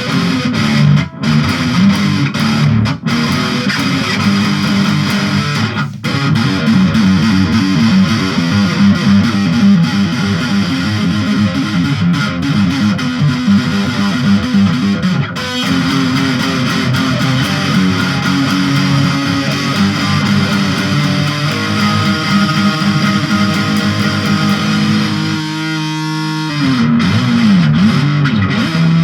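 Distorted electric guitar in drop D tuning played fast, in quick runs of notes. Near the end a note is held and bent down and back up in pitch.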